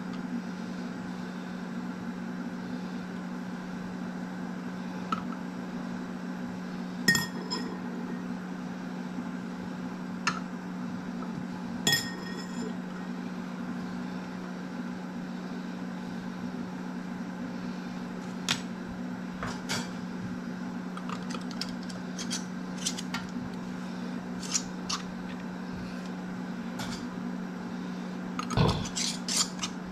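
Glass canning jars and metal screw bands clinking and tapping as lids are fitted and tightened by hand. The sharp clicks are scattered, two of them ringing on briefly, and they come more thickly with a louder cluster near the end, over a steady low hum.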